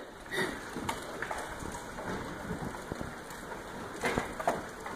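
Golf-ball-sized hail coming down: a steady patter dotted with many separate sharp hits, with a louder flurry of hits near the end.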